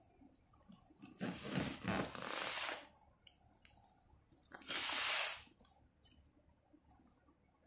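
Silicone wheel protector ring being stretched and rubbed onto a worn plastic suitcase caster wheel by hand: two scraping rubs, the first lasting almost two seconds and the second about a second.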